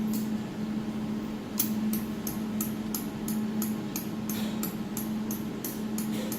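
Jewelry laser welding machine running with a steady low hum, joined about a second and a half in by evenly spaced sharp clicks, about three a second.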